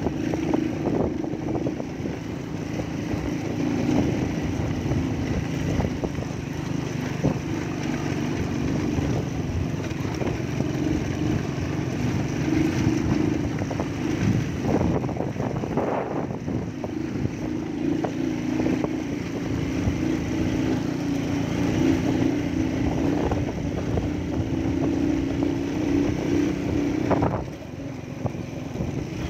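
Motorcycle engine running steadily as it is ridden over a rough dirt road, with road and wind noise; the engine sound drops about 27 seconds in.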